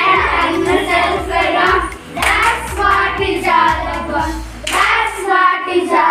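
A group of children singing an English action rhyme together, with a few hand claps.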